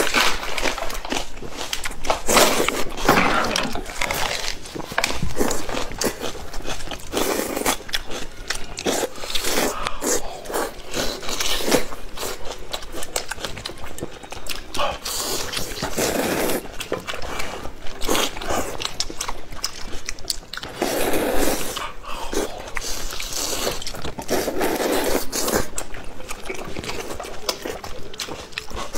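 Close-miked eating sounds: noodles slurped and food bitten and chewed, with many small wet clicks and lip smacks throughout.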